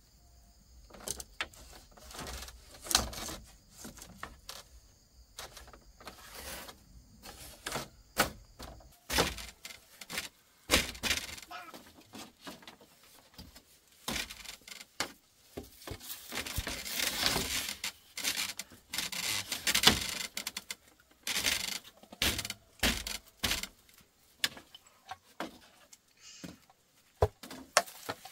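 Irregular clicks, knocks and rustling of objects being handled, with a denser rustling stretch a little past the middle.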